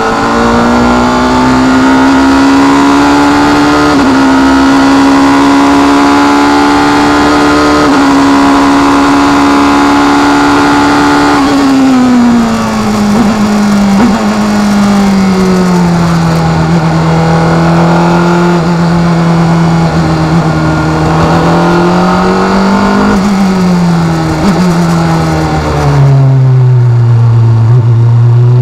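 Onboard sound of a 2.0-litre Vauxhall XE four-cylinder engine in a Dallara single-seater at full throttle. Its pitch climbs steadily with small breaks at the gear changes, then falls away and holds lower at speed. A brief rise comes about 23 seconds in, and then it drops sharply as the car slows in third gear near the end.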